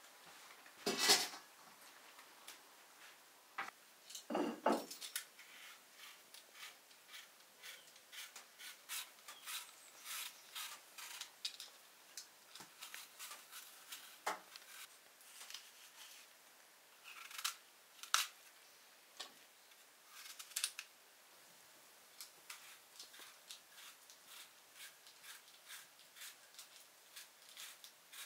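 Quiet, irregular clicking and scraping of hands-on kitchen work, with two louder knocks in the first five seconds, then a steady run of small, sharp clicks and scrapes.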